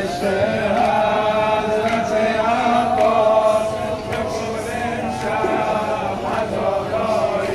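Voices chanting a Muharram mourning lament (noha) in long, drawn-out notes.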